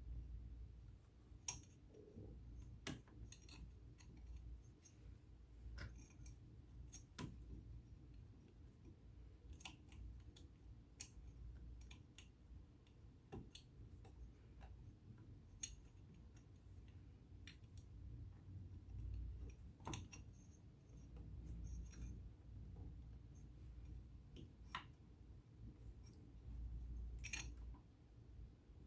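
Faint, irregular clicks and taps of small metal sewing-machine parts being handled and fitted by hand during cleaning, with two sharper clicks at about a second and a half and at about fifteen seconds in, over a low steady hum.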